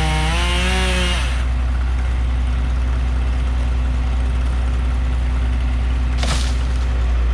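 Two-stroke chainsaw running at high revs with a wavering pitch, stopping about a second in. A steady low engine drone then carries on, with a short knock about six seconds in.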